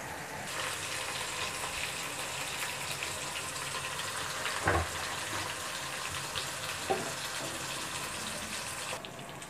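Eggplant and potato curry sizzling in a pot on the stove as water goes in for the gravy. A dull knock comes about halfway through, and a lighter click a couple of seconds later.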